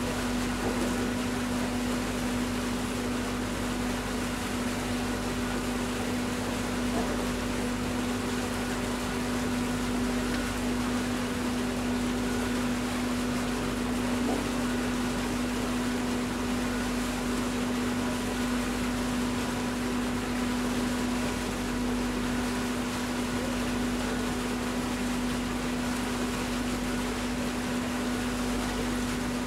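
Steady machinery hum of the river cruise ship Konstantin Fedin as it moves slowly past: one constant low-pitched drone over an even rushing noise.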